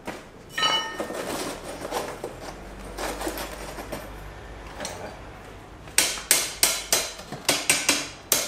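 Steel rack being fitted into a coal forge hearth: a ringing metal clang, then scraping and rattling of metal on metal, then a quick run of about eight sharp metal knocks near the end.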